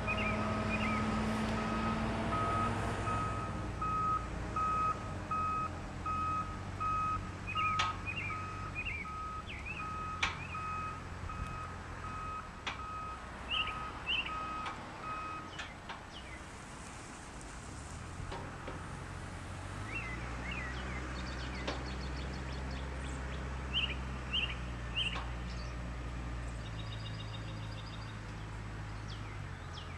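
A vehicle's reversing alarm beeping steadily, about two beeps a second, stopping about 16 s in, over an engine running in the background. Short bird chirps come now and then.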